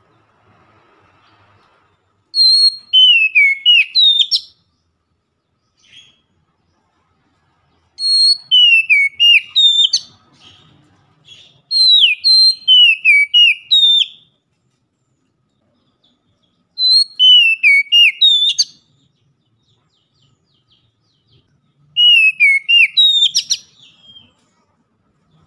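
Oriental magpie-robin singing loudly: five bursts of quick whistled notes, many sliding downward, each about two seconds long with pauses of a few seconds between.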